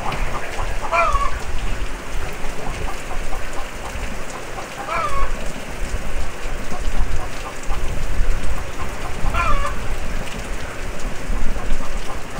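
Steady rain falling on a muddy yard, with a hen cackling three times, about four seconds apart: the call a hen gives when she is laying an egg or about to lay.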